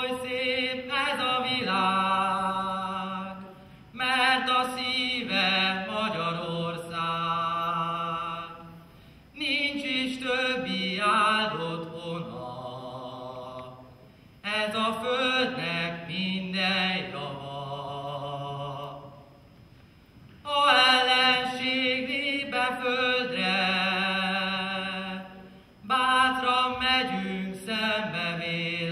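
A young man singing a Hungarian folk song solo and unaccompanied, in phrases of about five seconds with brief pauses between them, with vibrato on the held notes.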